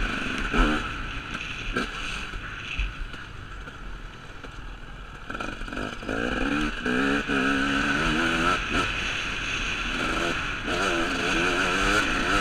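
KTM 250 SX two-stroke motocross engine heard onboard while riding a dirt track, with steady wind and riding noise. It is quieter for a few seconds, then from about halfway its pitch rises and falls as the throttle is opened and closed.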